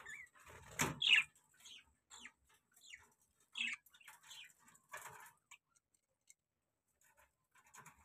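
Budgerigars chirping: short, high squeaky calls, some falling in pitch, about once a second, strongest about a second in and dying away after five or six seconds.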